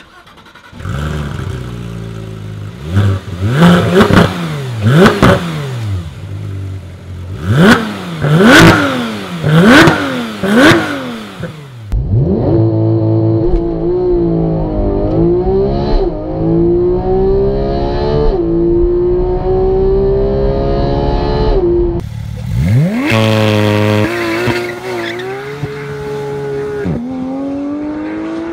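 Porsche 991 GT3's 3.8-litre naturally aspirated flat-six engine. First comes a run of about seven sharp throttle blips, each revving high and falling straight back. Then it pulls hard through the gears, the pitch climbing and dropping at each upshift, and after a short break it revs up hard again and climbs once more near the end.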